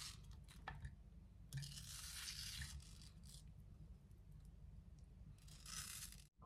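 Small knife cutting through a peeled ripe mango held in the hand, in faint, soft scraping strokes: one at the start, a longer one about two seconds in, and another near the end.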